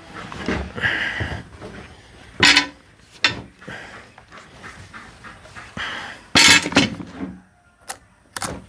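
Handling noises from a stopped Stihl MS 162 chainsaw: scattered knocks, clicks and clatters, the loudest two sharp knocks about two and a half and six and a half seconds in, with a brief squeak about a second in.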